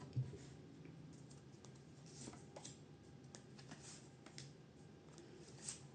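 Faint, scattered light clicks and rustles of tarot cards being handled and drawn.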